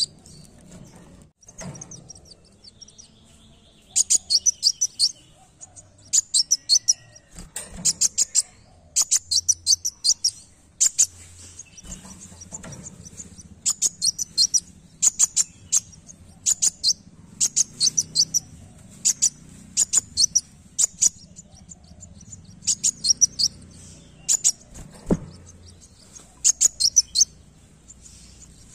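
Caged male sunbird of the kind kept as kolibri wulung singing: bursts of rapid, very high, thin chirping notes, each about a second long, repeated over and over with short pauses between.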